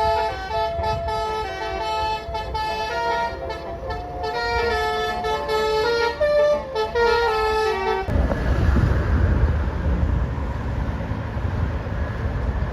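Bus 'telolet' Basuri multi-trumpet musical air horn playing a tune of stepping notes, which cuts off abruptly about eight seconds in, followed by a loud low rumbling noise.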